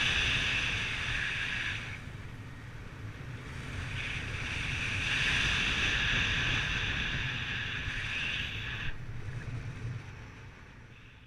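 Wind rushing over the microphone in flight: a steady low rumble with a hiss that swells and eases twice, fading out near the end.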